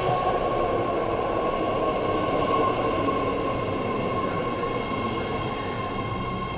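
New BART electric train pulling into the station along the platform: the steady rumble of its cars rolling past, with a steady high whine over it.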